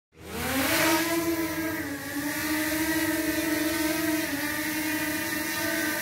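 DJI Mavic Mini quadcopter's propellers spinning up from silence into a rising whine as it lifts off, then a steady high-pitched buzz as it hovers, with a couple of brief dips in pitch.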